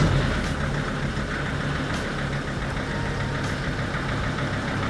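A Mercedes Sprinter van's turbodiesel engine idling steadily just after starting, heard from inside the cabin. Its exhaust now runs through a newly fitted tailpipe out the back of the van, rather than ending beneath the seats.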